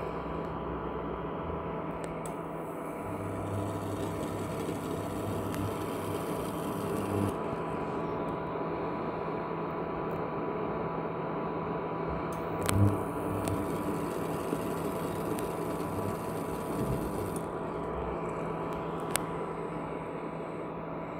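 Ailipu ALP-12 induction cooktop running at 500 W with a stainless kettle on it: a steady fan hum with a few faint steady tones. A brief knock comes about two-thirds of the way through, and a sharp click near the end.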